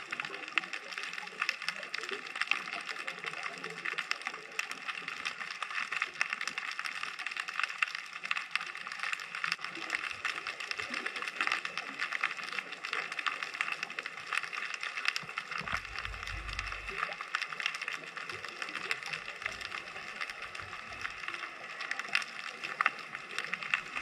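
Underwater ambient sound picked up through a submerged action-camera housing: a steady, dense crackle of tiny clicks, with a brief low rumble about sixteen seconds in.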